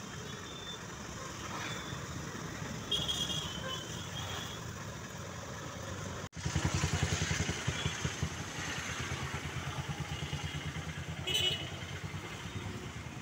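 Roadside traffic noise with a motor vehicle's engine running. After a brief dropout about six seconds in, a closer engine runs with a low, fast pulsing, and two short high-pitched sounds cut through, one before the dropout and one after.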